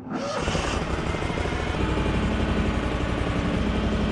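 Terramite compact backhoe's engine running steadily, starting up loud about half a second in; a steady hum joins about two seconds in.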